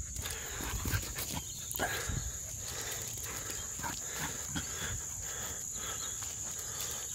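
Crickets chirring steadily and high-pitched, with irregular soft thuds and rustles of footsteps as a dog runs past close by on grass and concrete.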